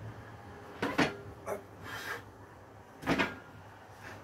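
Deadlift of a homemade barbell loaded with large wooden wheels: a few short, sharp sounds of the lift, the loudest about a second in and again about three seconds in.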